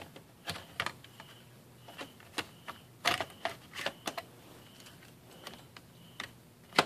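Irregular plastic-and-metal clicks and taps as a laptop hard drive in its metal caddy is pushed and seated into the laptop's drive bay, loudest about three seconds in and again near the end.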